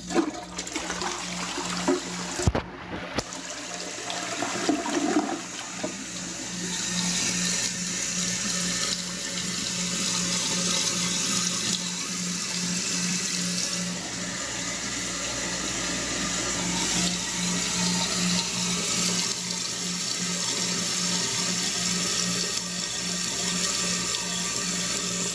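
Toilet flushing with a newly installed Fluidmaster 400A fill valve and new flapper, a knock about two and a half seconds in, then a steady rush of water as the valve refills the tank and bowl.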